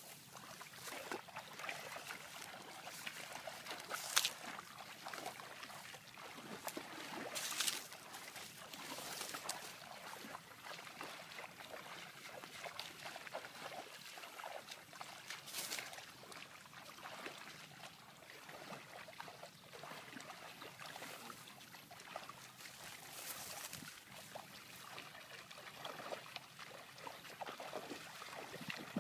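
Shallow pond water sloshing and trickling as two people wade through it hauling a fishing net, with a few louder splashes.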